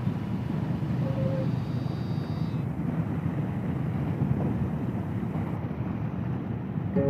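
Steady low rumble of a boat under way, with wind on the microphone.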